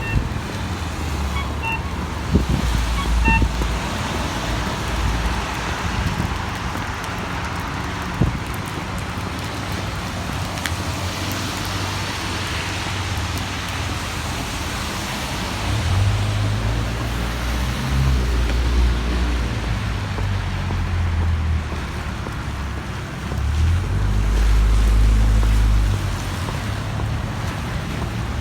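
Rainy city street ambience: a steady hiss of traffic on wet roads, with low rumbles from passing vehicles swelling up twice, the louder one near the end.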